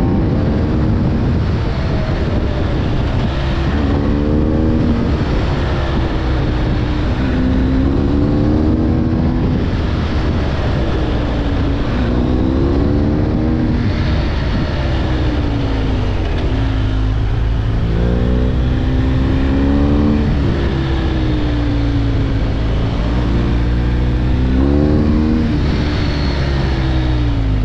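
Motorcycle engine, a BMW R 1250 GS boxer twin, under way. Its pitch climbs and then drops back again about every three seconds, over a steady deep drone.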